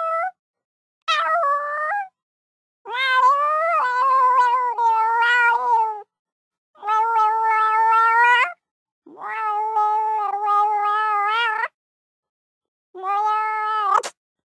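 Domestic cat in heat yowling: about five long, drawn-out meows with a wavering pitch, each lasting one to three seconds, separated by short silent gaps. This is the repeated calling of a female cat in estrus.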